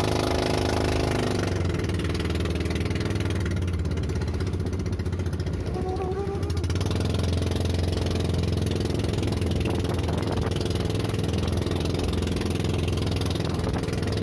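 Small outrigger fishing boat's engine running steadily with an even low drone, over a hiss of wind and water as the boat rides choppy sea.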